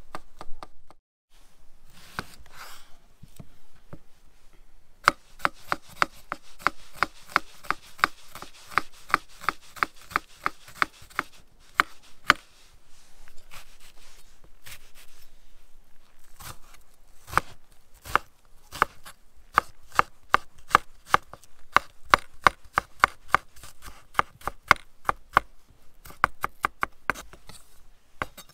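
Kitchen knife chopping garlic and onion on a wooden cutting board: sharp strokes of the blade against the board, in quick, even runs with short pauses between them.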